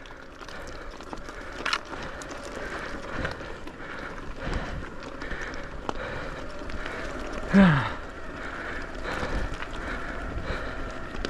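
Electric mountain bike riding down a dirt trail: tyres rolling and the bike rattling over the ground, with wind on the microphone. About seven and a half seconds in comes a short, loud sound that falls in pitch.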